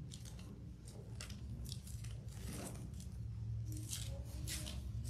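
Paper Bible pages being turned and handled, a string of short, soft rustles and crinkles at uneven intervals, over a steady low hum.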